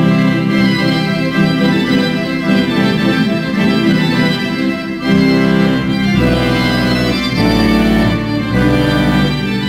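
Organ playing a slow run of held chords that change every second or so from about five seconds in, with deep bass notes joining about halfway through.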